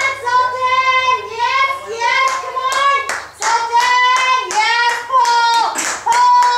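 A handler calling a dog in a high, sing-song voice, with repeated hand claps. These are the calls and claps used to urge a standard poodle to pull its weighted cart.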